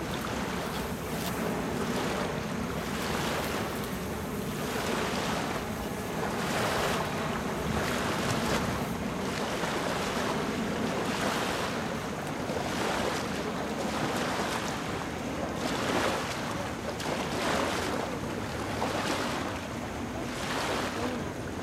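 Shallow bay water sloshing and splashing around wading legs, swelling every second or so, with wind buffeting the microphone.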